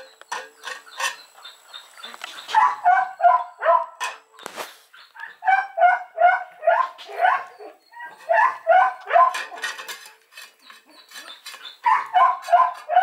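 A young puppy eating from a stainless steel bowl, giving short, high whining yips in quick runs of several at a time, each rising a little in pitch, with small clicks from its eating in between.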